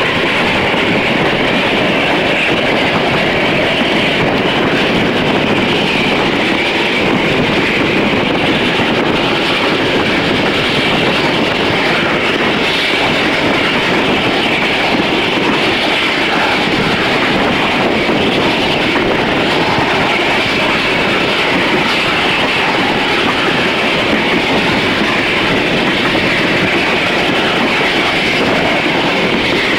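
Passenger train running at speed, heard from an open coach window: a steady rush of wheels on rail and wind, with no letup.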